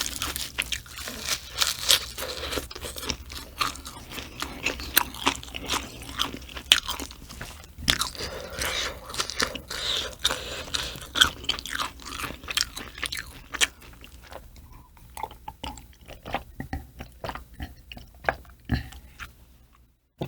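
Close-miked eating: crisp crunching bites and chewing, dense at first and thinning out over the last several seconds.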